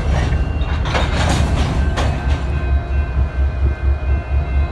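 Freight train of covered hopper cars giving a steady low rumble, with brief rushes of noise about one and two seconds in.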